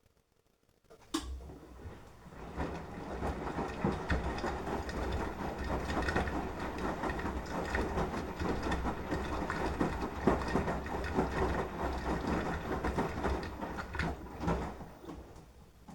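Beko washing machine's drum turning during the wash phase: a click about a second in, then a low motor hum under a steady clatter of laundry and water tumbling in the drum. It stops near the end, as the drum pauses between turns.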